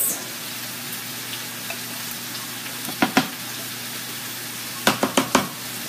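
Steady sizzle of food frying in a pan on the stove. About three seconds in, a spatula knocks a couple of times against a glass mixing bowl, then several times in quick succession near the end.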